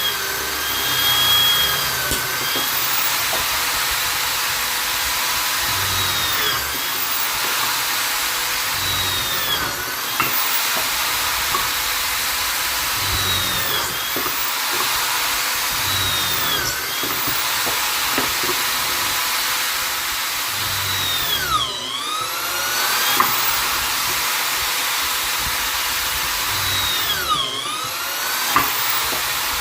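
Vonder electric drill/driver running continuously, its motor whine dipping in pitch and climbing back every few seconds as it loads up, typical of a bit boring into wood. The deepest dips come about two-thirds of the way in and again near the end.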